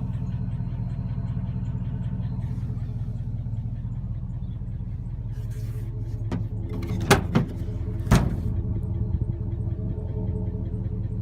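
2007 Chevrolet Silverado 1500's engine idling steadily; the truck has bad lifters and no oil pressure. Three sharp knocks come about seven to eight seconds in.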